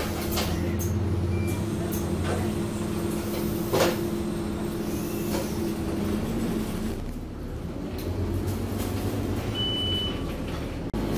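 Scania OmniCity bus's diesel engine idling at a stop, heard from inside the saloon, with a few sharp clicks and knocks. The steady hum changes and drops away about seven seconds in, and a single short high beep sounds near the end.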